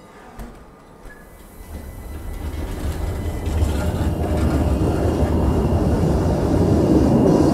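Class 399 Citylink tram-train pulling away from a street stop, its running gear rumbling louder and louder as it gathers speed past.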